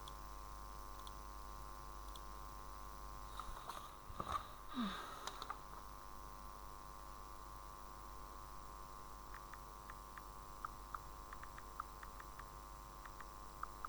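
Steady electrical mains hum with a buzzing edge, broken by a brief rustle about four seconds in and, in the second half, a scatter of light sharp clicks.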